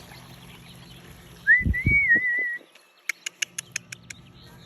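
A person whistles one short note that rises and then wavers, about one and a half seconds in, with a couple of dull low thumps under its start. About three seconds in comes a quick run of about seven short, evenly spaced chirps.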